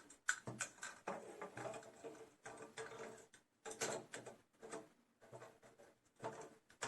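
Wiring harness cables and plastic connectors being handled, with irregular clicks and rustling as a connector is plugged into a socket.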